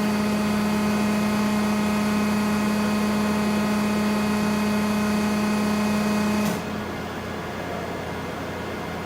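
Hydraulic power unit of a Techno CNC tube bender running with a steady hum made of a strong low tone and overtones. About six and a half seconds in the tone cuts off suddenly and a quieter, even machine noise carries on.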